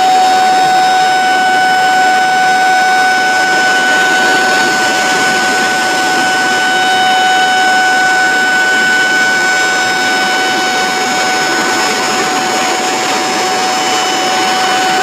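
Water rushing out of a concrete dam's discharge gates, with a steady siren tone held at one pitch over the rush.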